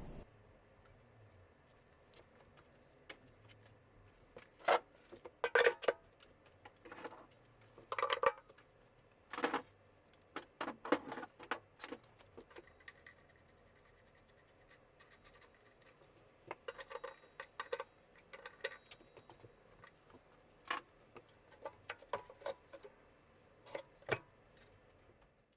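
Intermittent clinking and clattering of small metal parts and hand tools being handled and set down, with brief metallic rings. The sounds come in two busy stretches, with the loudest clanks in the first.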